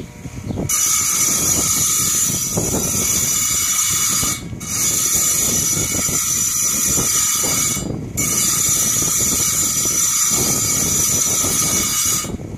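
Harbor Freight tile saw cutting through rock, a steady high-pitched grinding that starts about half a second in, dips briefly twice, and stops just before the end.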